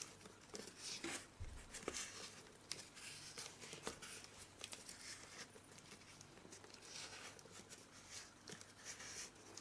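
Faint rustling and small clicks of electrical insulating tape being unwound and wrapped around the nose of a small hand-built glider.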